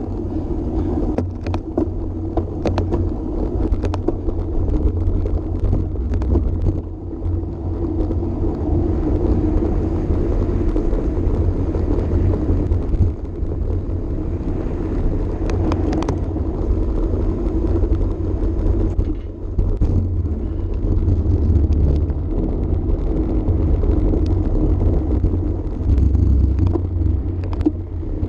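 Wind buffeting the microphone of a camera on a road bike ridden at racing speed: a steady low rumble together with the hum of tyres on the pavement, broken by many short clicks and rattles from the bike.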